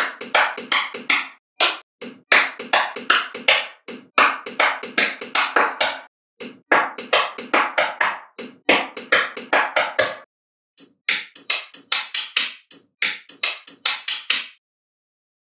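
Small magnetic balls snapping together in quick runs of sharp clicks, several a second, broken by short silent gaps.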